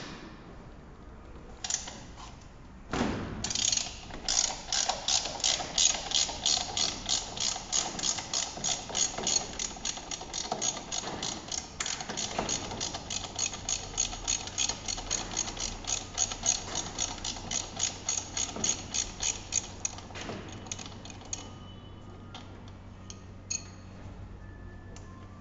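Ratcheting wrench clicking steadily, about three clicks a second, as it works the hub motor's axle nut loose. The clicking starts about three seconds in and stops about twenty seconds in.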